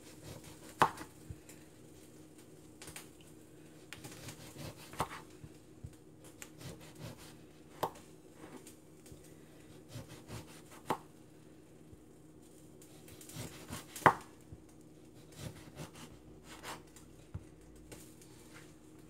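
Kitchen knife slicing lemons on a wooden cutting board: irregular knocks of the blade meeting the board, two of them much sharper than the rest, over a faint steady hum.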